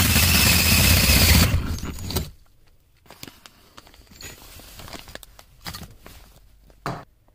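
Power drill spinning a hole saw through the ceiling to cut a light hole, running loud and steady, then winding down and stopping about two seconds in. After it come a few faint knocks and clicks, with a sharper knock near the end.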